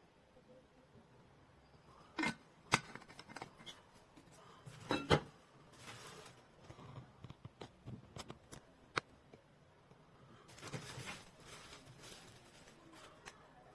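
Handling noises in a small room: scattered clicks and light knocks with a few short rustles.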